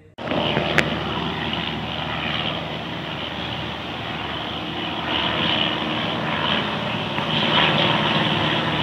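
Small propeller-driven training aircraft flying overhead, its engine and propeller giving a steady drone. A single sharp click just under a second in.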